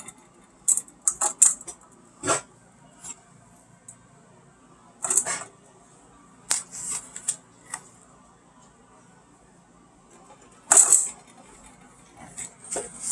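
Irregular clicks, taps and knocks of hands working with apples, loudest about two, five, six and a half and eleven seconds in.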